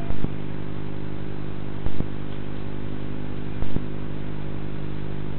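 Steady electrical mains hum and hiss on a security camera's audio line, with a short, loud click repeating about every second and three quarters.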